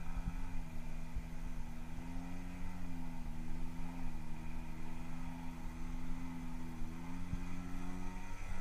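Radio-controlled model airplane's motor and propeller droning at a fairly steady throttle, its pitch wavering slightly, over a low rumble.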